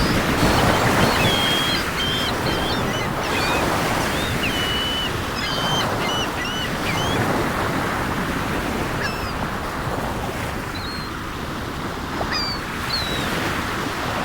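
Sea waves washing on the shore in steady surf, with gulls calling over it in many short calls, most of them in the first half and a few more near the end.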